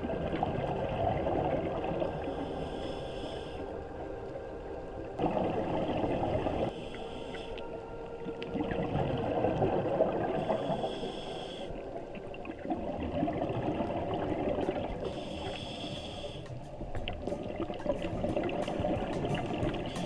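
Scuba diver breathing through a regulator underwater: a short hiss on each inhale and a burst of bubbling on each exhale, repeating about every four to five seconds.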